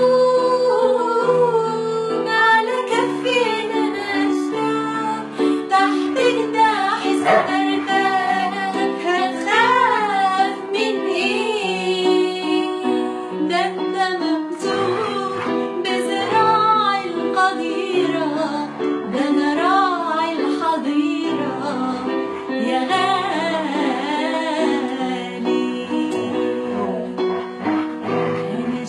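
Music: an Arabic Christian hymn, with a solo voice singing a wavering melody over steady instrumental accompaniment.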